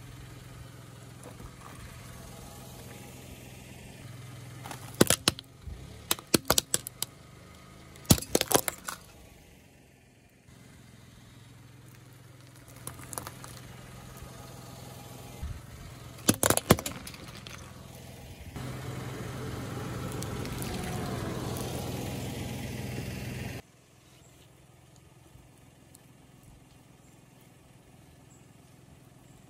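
A car idling with a steady low hum while its tyre rolls over and crushes small hard objects: several clusters of sharp cracks and crunches, and a longer stretch of louder rolling and grinding about two thirds of the way through.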